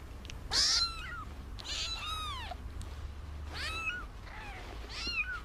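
Newborn kittens mewing: a series of short, high-pitched cries, each rising then falling in pitch, about seven across a few seconds.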